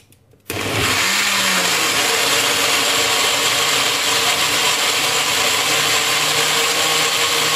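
Countertop blender switching on about half a second in and running steadily at full speed, blending oats, egg whites, cacao powder and banana into a smooth batter.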